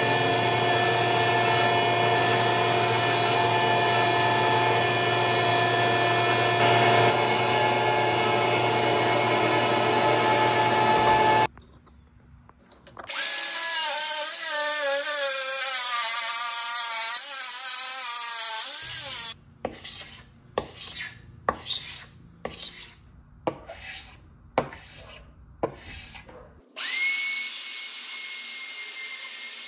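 Router on a flattening sled running steadily as it surfaces a wood-and-epoxy slab, cutting off sharply about eleven seconds in. A small circular saw then spins up and cuts along a straightedge, followed by a run of about seven short bursts. Near the end a handheld router runs steadily, routing a 45-degree chamfer on the slab's edge.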